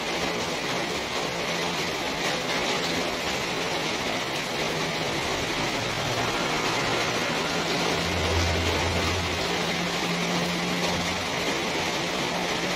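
Steady rain falling, an even hiss of drops. A low hum swells briefly about eight seconds in.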